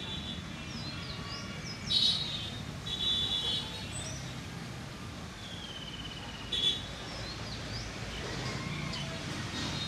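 Birds chirping and calling in short warbling phrases, loudest about two seconds in and again near seven seconds. Underneath is the low, steady rumble of a WDM-3A diesel locomotive running light at low speed.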